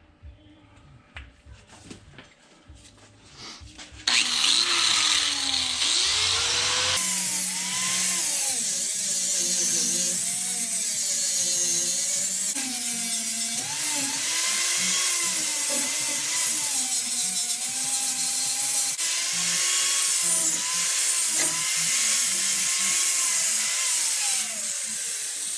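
Angle grinder grinding steel, starting about four seconds in after some faint handling noise; its whine wavers up and down in pitch as the disc bears on the metal.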